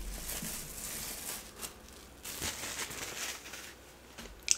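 Thin plastic wrap crinkling and rustling in irregular crackles as it is peeled off a ball of oatmeal fufu by hand, with one sharper tick near the end.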